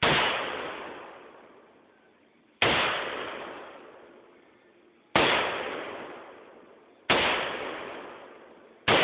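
AK-47 rifle firing five single shots in 7.62×39 mm, about two seconds apart, each shot trailed by a long echoing tail that fades away before the next.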